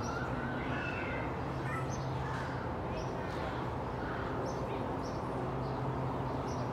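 Faint, short rising chirp-like calls, scattered about once a second, over a steady low hum.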